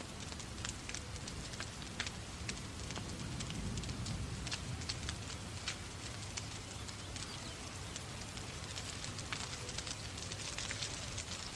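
Wood fire crackling and popping in a fireplace, with many sharp irregular snaps over a steady hiss of rain. A low rumble swells briefly a few seconds in.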